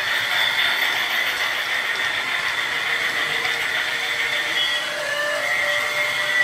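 Battery-powered toy steam locomotive running on its plastic track: a steady whine from its small electric motor over a rolling, rattling noise, with a brief shift in pitch about five seconds in.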